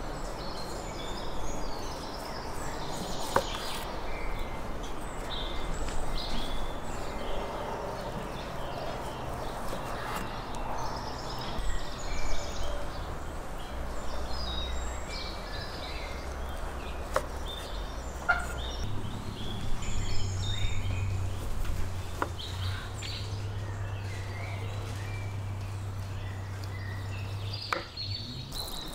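Chef's knife slicing sheep's fat tail on a wooden cutting board, with a few sharp knocks of the blade on the board, while birds chirp in the background. A low steady hum comes in about two-thirds of the way through.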